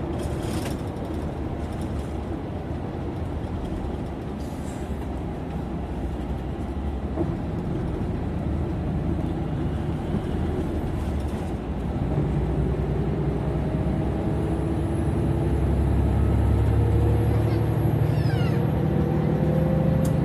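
Engine and road noise from inside a moving vehicle on a highway, a steady rumble that grows louder about twelve seconds in as the engine note strengthens and rises slightly near the end.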